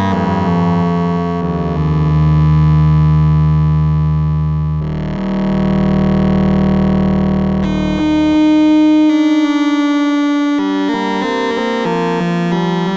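Moog Spectravox analog synthesizer oscillator played on its own: long held notes that change pitch every few seconds, the tone darkening and brightening as the filter closes and opens, then quicker notes near the end.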